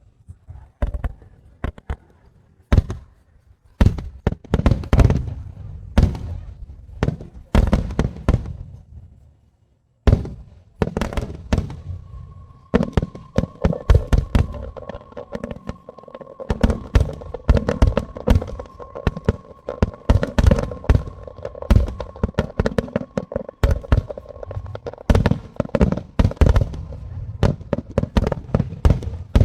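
Fireworks going off: scattered loud bangs at first, then after a short lull a dense, continuous barrage of bangs and crackling. A faint steady tone sounds under the barrage through its middle part.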